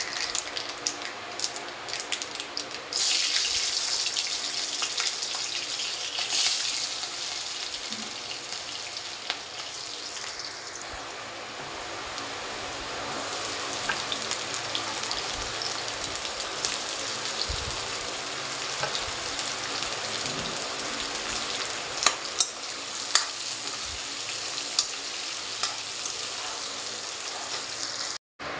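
Mustard seeds and chopped onion and potato frying in hot oil in a steel kadhai, a steady sizzle that turns louder about three seconds in. Sharp clicks of a steel ladle against the pan come with the stirring, loudest near the end.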